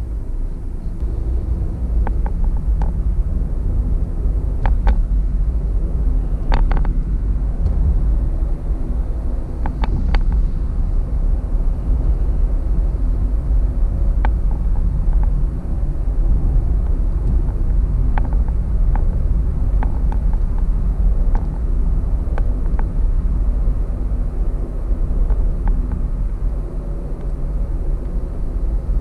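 Car cabin noise at highway speed: a steady low rumble of road and engine, with short clicks and ticks scattered through it.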